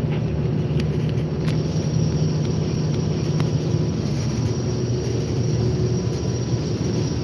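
Steady drone of a passenger ferry's engines under way: an even low hum with a rushing noise over it, unchanging throughout, heard from inside the cabin.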